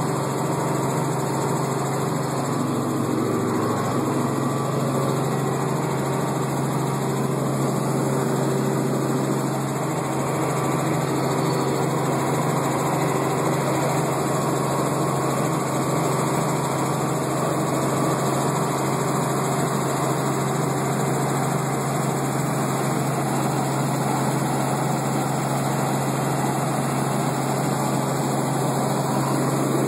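Helicopter running steadily: a constant low engine-and-rotor drone under a broad rushing noise.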